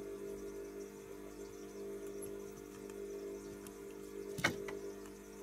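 Steady low hum made of several level tones, with one sharp click a little over four seconds in and a fainter click just after it, during hand soldering at a workbench.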